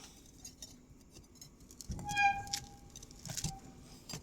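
Steel tools and truck wheel parts clinking as they are handled; about two seconds in a piece of steel is struck and rings with a clear tone, and a second, shorter ring follows a little over a second later.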